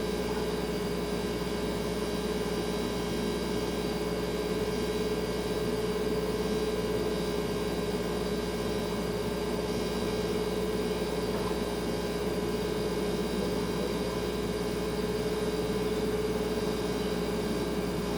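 Refrigerator running with a steady hum: one clear, unchanging mid-pitched tone over a low drone and a soft hiss.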